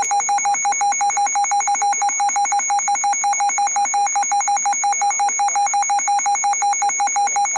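Emergency Alert System electronic alert tone beeping rapidly and evenly, several beeps a second, signalling an incoming severe thunderstorm warning.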